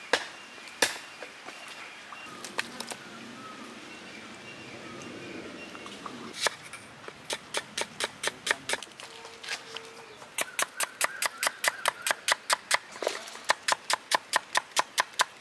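A broad-bladed knife slicing red onions on a wooden log chopping block, each stroke ending in a sharp knock on the wood. The knocks start about six seconds in and settle into a steady rhythm of about four a second, with a short pause around the middle.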